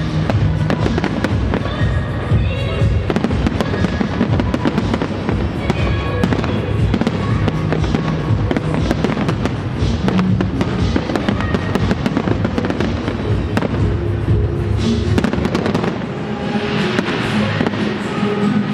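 Large aerial fireworks display firing without pause, a dense run of bangs and crackling, with music playing along underneath.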